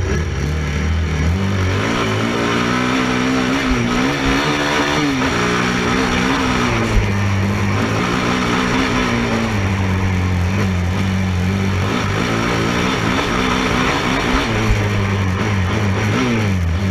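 Racing ATV (quad) engine running hard, its pitch rising and falling as the throttle is worked, with two brief drop-offs. A single thump about seven seconds in.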